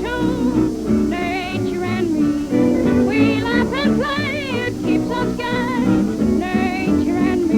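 Lively cartoon soundtrack music with fast, quavering melody lines over a steady accompaniment.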